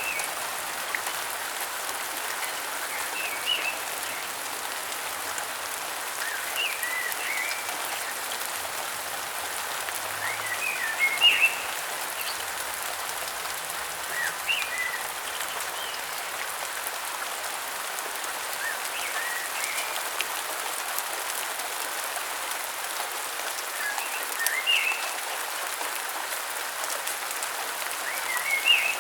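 Steady rain hissing, with a bird calling in short chirping phrases every few seconds over it.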